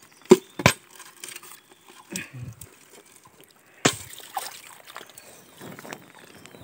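Shallow muddy water sloshing and splashing as hands dig among wet stones in a stream bed, with a few sharp knocks, two near the start and one about four seconds in.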